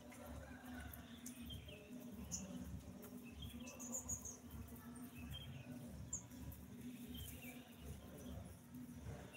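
Small birds chirping now and then, short high notes scattered through, over a faint low rumble of outdoor background.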